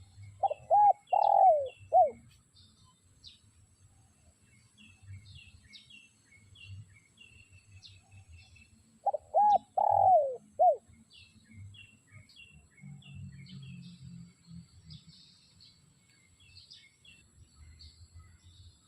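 Spotted dove cooing: two phrases of about four arched notes each, about nine seconds apart. Small birds chirp faintly throughout.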